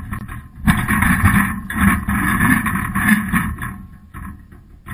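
Muffled rumbling and rubbing from a GoPro sealed in its waterproof housing inside a wire crab pot as the pot is swung over a railing and lowered on its rope. The noise is loudest for about three seconds, then dies down near the end.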